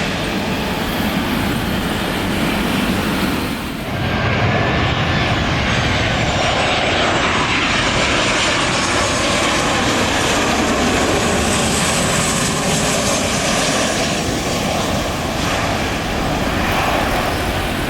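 Jet airliner's turbofan engines running loud on landing approach: a steady rushing noise with faint whining tones that slowly shift in pitch. There is a brief dip about four seconds in.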